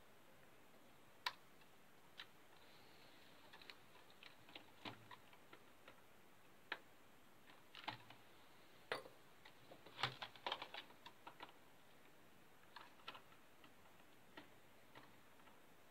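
Scattered small clicks and taps from the plastic and metal parts of a Packard Bell EasyNote TJ75 laptop as they are handled during disassembly, with a quick run of clicks about ten seconds in.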